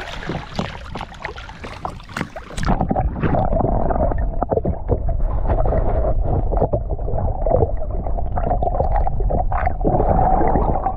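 Water splashing as a hand lowers a big flathead catfish back into the lake, then, about three seconds in, the sound turns to a loud muffled rumble and gurgle as the camera goes under the surface.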